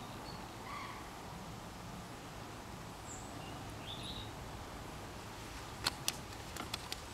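Steady outdoor background with a few short, faint bird chirps, then a handful of sharp clicks and taps near the end.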